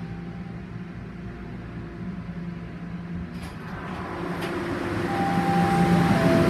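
Subway train pulling in. Over a steady low hum, a rumble grows louder from about four seconds in, and an electric motor whine steps down in pitch as the train brakes.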